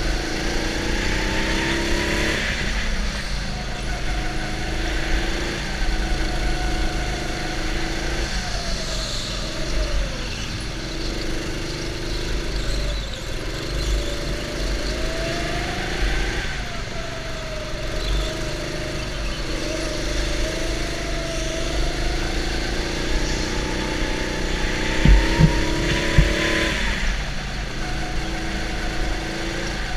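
Go-kart being driven hard around an indoor track, its motor's pitch climbing on the straights and dropping into the corners, over and over, with a steady low rumble underneath. A few sharp thumps about three-quarters of the way through.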